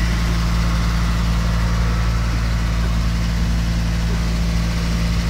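A passenger boat's engine running steadily, a low even drone.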